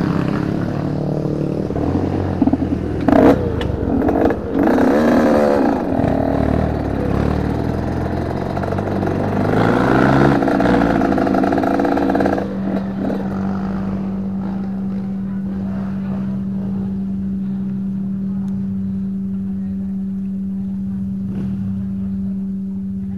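Trail motorcycle engines running and revving, rising and falling in pitch, with two sharp knocks in the first few seconds; about halfway through, the sound settles into one engine idling steadily.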